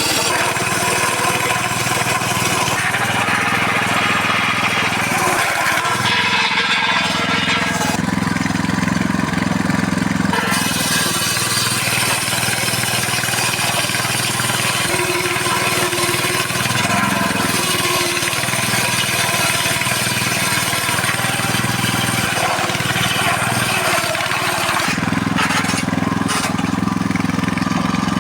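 Circular saw running under load, ripping lengthwise through a thick mahogany board: a continuous, steady motor whine mixed with blade cutting noise.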